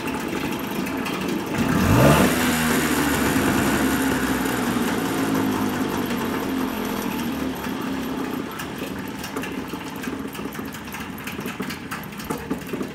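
1997 Nissan 5 HP two-stroke outboard motor running. About two seconds in it revs up with a quickly rising pitch, then runs steadily at the higher speed and is shut off at the very end.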